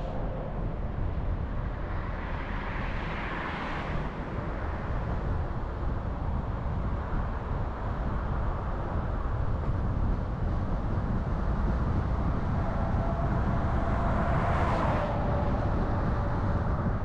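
A car driving on a road: steady engine and tyre rumble. A hiss swells briefly about three seconds in and again near the end.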